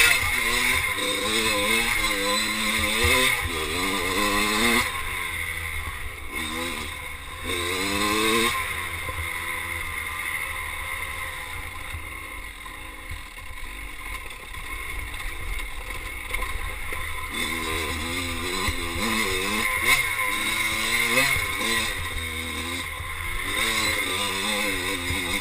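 Kawasaki KX dirt bike engine revving up and dropping back over and over as the throttle is worked, with a quieter, lower-revving stretch in the middle, over a steady low rumble.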